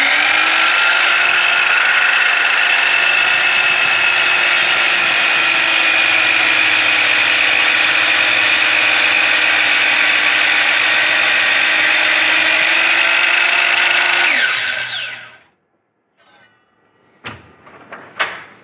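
DeWalt sliding compound miter saw spinning up and running with a steady whine for about fourteen seconds while its blade cuts through a round wooden cylinder, then winding down to a stop. A couple of light knocks come near the end.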